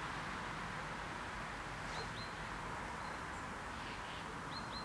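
Outdoor ambience: a steady rushing hiss with a few short, high bird chirps, two about two seconds in and a quick run of three or four near the end.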